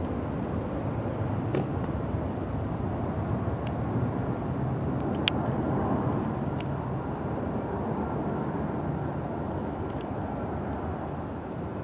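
Boeing 787-9 airliner on final approach with its landing gear down, its engines heard as a steady distant rumbling roar. A handful of sharp clicks sound over it.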